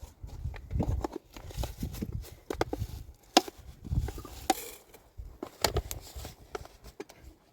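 Irregular knocks and thuds, with sharp clicks between them.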